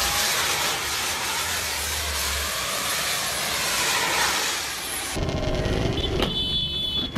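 Jet-powered hoverboard's turbines running with a steady rushing hiss. About five seconds in, this cuts off abruptly and a motorcycle engine is heard instead.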